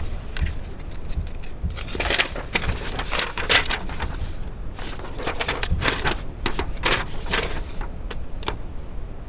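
Paper crinkling and rustling in irregular strokes as printed manuals and instruction sheets are handled and leafed through.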